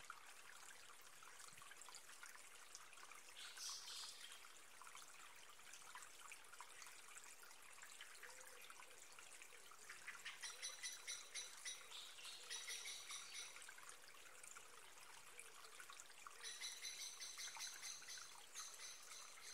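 Near silence: a faint trickle-like hiss in the background, with faint high-pitched pulsing trills about ten seconds in and again near the end.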